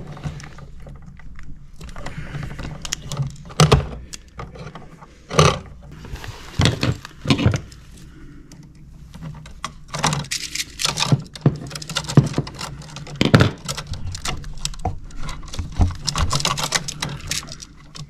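Scattered clicks, taps and rustles of house wiring being folded and pushed into an electrical wall box and a wall receptacle being handled, with a low steady hum underneath.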